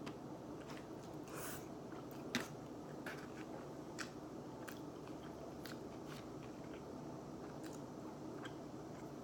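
A person chewing and biting into barbecue pizza, with scattered short wet mouth clicks and a sharper click about two and a half seconds in, over a faint steady hum.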